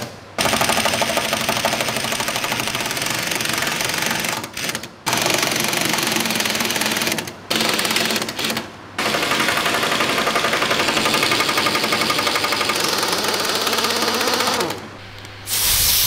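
Pneumatic impact wrench hammering on the tank turret ring's steel bolts in several long bursts with short pauses between them.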